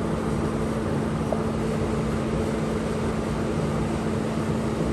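A vehicle engine idling steadily with a constant hum, run to check the newly installed power steering box for leaks.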